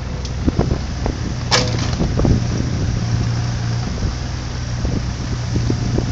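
Mini digger's engine running steadily as it slews and works its boom, with scattered metal clanks and knocks, the sharpest about a second and a half in.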